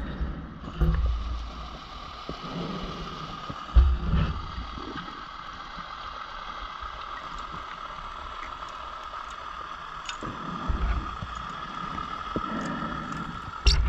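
Underwater, a scuba diver's exhaled bubbles rumble in irregular bursts about four times, over a steady faint high hum.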